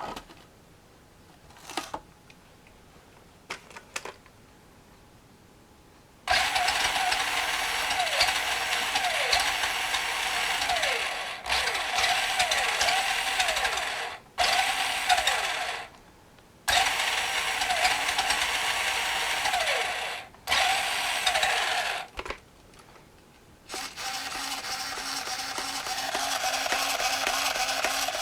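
1/10 scale R/C Holiday Buggy's electric motor and geared drivetrain running under throttle in several runs of a few seconds, with short stops between and the pitch dipping repeatedly, after a few light clicks at first.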